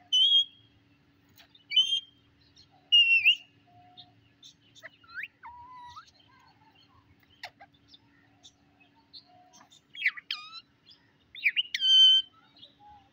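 Rose-ringed parakeet calling: three short, shrill calls in the first few seconds, softer chirps, then a quick run of loud calls near the end.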